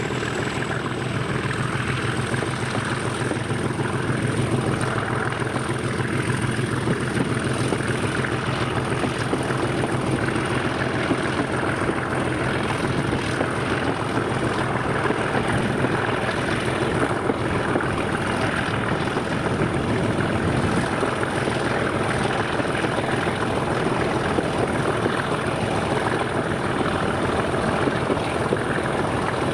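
Heritage diesel locomotive engine running steadily under power, with a high whine that climbs in pitch in the first second and then holds steady.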